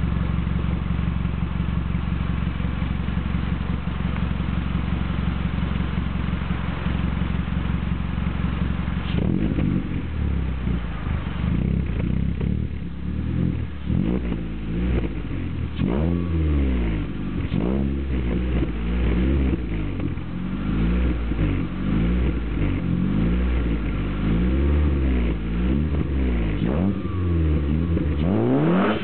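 Seat Ibiza Sport 1.4's exhaust, which is fitted with a Peugeot 106/206 air intake, heard at the tailpipe. The engine idles steadily for about nine seconds, then is revved again and again in quick blips, about one a second, each rising and dropping back.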